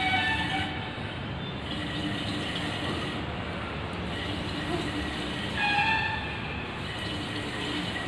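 Breath blown through a straw bubbling steadily into the liquid in a glass conical flask: exhaled carbon dioxide being passed into a pink sodium hydroxide and phenolphthalein solution. A short pitched sound rises above it twice, near the start and about six seconds in.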